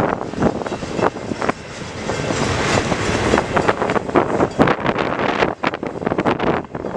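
Freight train of CN intermodal well cars rolling past, steel wheels rumbling on the rails with frequent irregular clanks and knocks.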